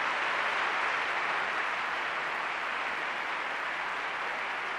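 A large audience applauding: dense, steady clapping that eases slightly toward the end.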